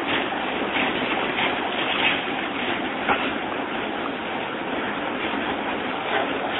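A tram passing close by and then running away along the street, its wheels running on the rails as a steady rolling noise, with a couple of sharp clicks.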